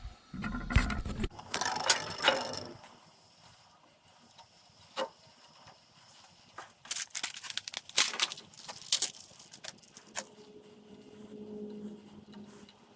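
Ratcheting crimping tool clicking as it crimps a terminal onto a wire: a burst of sharp clicks with handling noise in the first few seconds, a single click about five seconds in, and a quick run of clicks from about seven to nine seconds.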